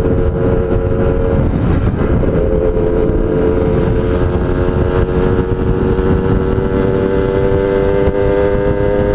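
GS Tornado motorcycle engine running under way over a steady rushing noise; its note drops briefly about two seconds in, then rises slowly and evenly as the bike pulls.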